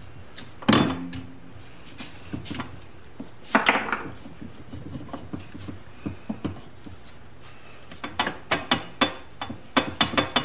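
Metal parts of a Honda CB750 engine clanking as the lower crankcase half is raised and reseated on the upper half. Near the end comes a quick run of small metallic clicks as the crankshaft is turned by hand to bring the transmission gears into mesh.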